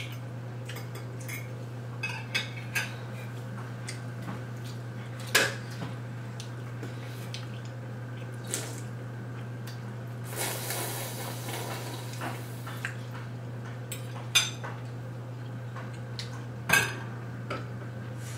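Forks clinking against ceramic plates and bowls during a meal, a sharp clink every few seconds over a steady low hum.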